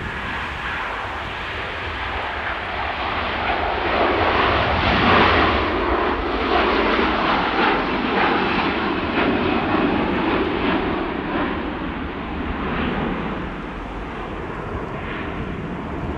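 Airliner's engines passing along the runway: a broad rushing noise that swells about four seconds in, holds for several seconds and then fades away, over a steady low rumble.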